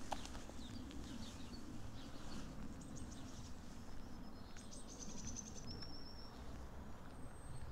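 Small songbirds singing: thin high chirps and short rapid trills, thickest from about three to six seconds in, over a faint low outdoor background.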